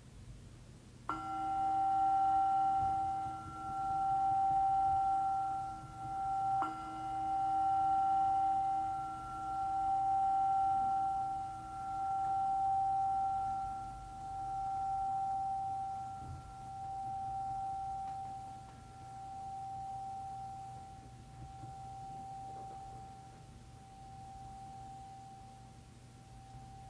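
A meditation bell struck twice, about five seconds apart, ringing on with a slow waver and fading gradually, marking the close of a silent prayer period.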